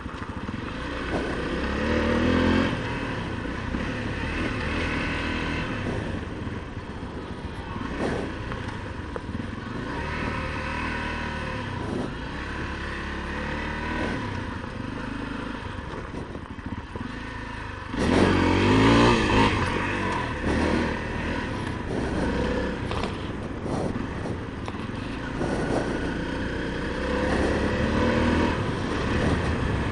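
Honda CRF250L's single-cylinder four-stroke engine running under way with wind noise, picked up by a helmet-mounted intercom microphone. Its pitch rises as the bike accelerates about two seconds in, and again, louder, about eighteen seconds in.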